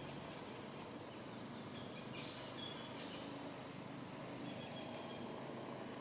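Steady outdoor background noise, with a brief burst of high-pitched chirping calls about two seconds in.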